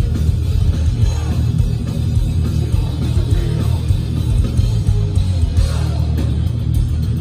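Thrash metal band playing live through a festival PA: distorted electric guitars over bass and drums, continuous and loud, with the bass end strongest.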